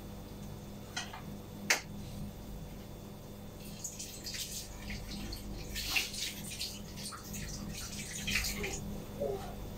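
Two sharp clinks about a second in, then a kitchen sink tap running in uneven, splashy spells as something is rinsed under it.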